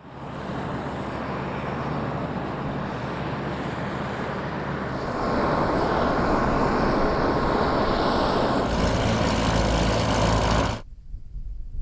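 Propeller aircraft engines running on the ground, in short clips cut together: the sound changes abruptly about five seconds in and again near nine seconds, then cuts out near the end.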